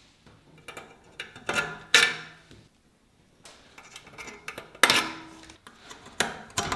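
Exhaust springs being stretched with long-nose pliers and hooked onto the tabs of stainless steel header pipes, giving several sharp metallic clinks that ring briefly, as the springs snap into place and the pliers knock against the pipes.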